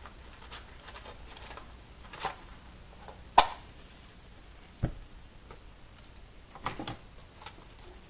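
A match struck sharply about three and a half seconds in, then a low thump about a second and a half later, with a few light handling clicks around them.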